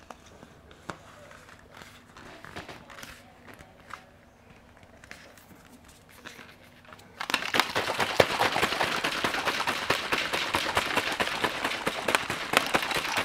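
A few light clicks and taps of handling, then about seven seconds in a protein shaker bottle being shaken hard: a loud, rapid, dense rattling that keeps going.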